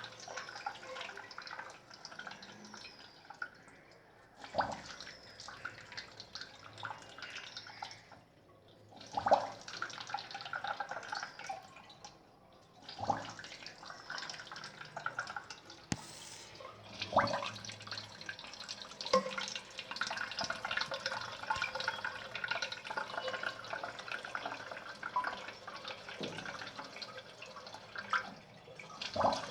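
Water running and dripping in a toilet cistern, stopping briefly now and then, with a few sharp knocks.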